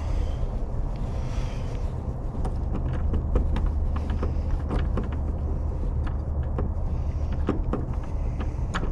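Small sharp metal clicks of lock picking tools working in a doorknob lock cylinder, coming quicker in the second half, over a steady low hum.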